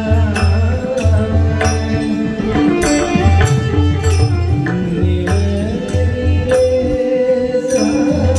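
Marathi devotional singing with a loud, high voice over a regular hand-drum beat, bright hand-cymbal strikes and long held notes.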